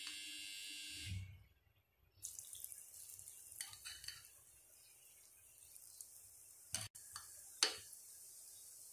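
Batter-coated chicken pakodi pieces frying in hot oil in a nonstick pan, a steady sizzle with light crackles starting about two seconds in. A few sharp taps come on top, the loudest near the end.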